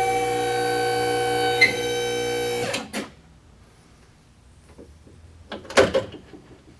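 Hydraulic hose crimper's electric pump motor running with a steady hum and whine during a crimp, then winding down and shutting off about three seconds in. A few faint handling clicks follow.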